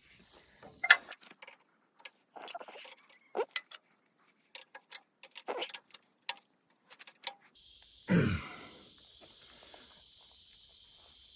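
Scattered metallic clicks and taps of a wrench working a fitting as a new hydraulic hose on a backhoe is tightened.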